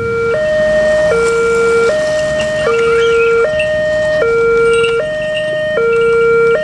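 Indonesian railway level-crossing warning siren sounding: an electronic two-tone alarm alternating steadily between a low and a higher tone, each held about three-quarters of a second. It signals an approaching train at the crossing.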